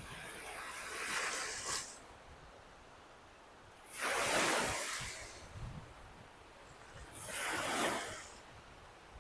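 Lake Michigan waves breaking and washing up the shore in three surges, each lasting one to two seconds, the loudest about four seconds in, with a soft hiss of water between them.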